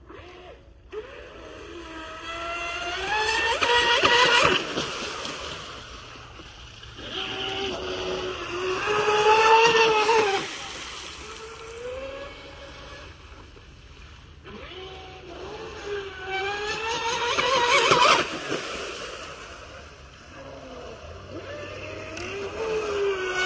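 Fast electric RC boat (Delta Force 35, brushless TP Power 4070 motor on a 6S lipo) running at speed with an Octura 445 propeller: a high whine that rises in pitch and swells as the boat passes, then fades. This happens three times, loudest about 4, 10 and 18 seconds in, and builds again near the end.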